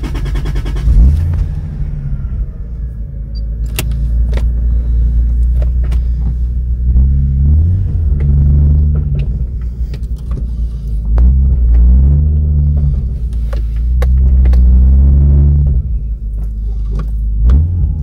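Turbocharged Toyota 2JZ inline-six in a Lexus IS300, heard from inside the cabin: it fires up as the key is turned, settles into a steady idle, then its revs rise and fall several times in the second half.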